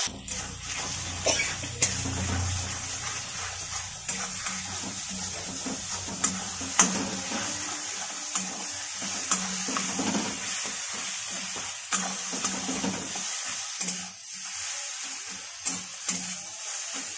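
Three eggs frying and sizzling in a kadai with onion-tomato masala while a flat metal spatula stirs, scrapes and breaks them up. Now and then there is a sharp click as the spatula strikes the pan.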